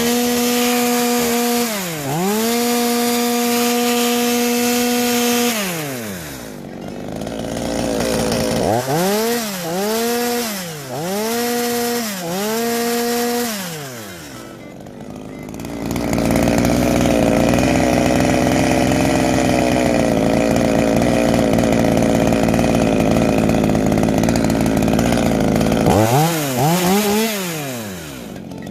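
Echo CS-350WES two-stroke chainsaw engine being test-run after repair. It revs up to full throttle, holds, and drops back, then gives several quick throttle blips. After a short dip it runs steadily for about ten seconds and revs again near the end.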